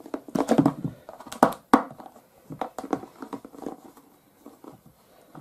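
A clear plastic storage box being handled, with rustling and a few sharp plastic clacks about a second and a half in, then lighter clicks.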